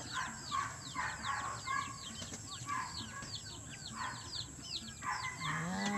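Backyard chickens clucking now and then, over a steady stream of quick, high, down-sliding chirps.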